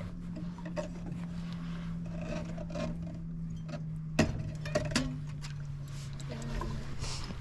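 Steady low hum of the boat's motor, dropping slightly in pitch about four seconds in, with light clicks from a fishing reel as a hooked lake trout is played and one sharp knock.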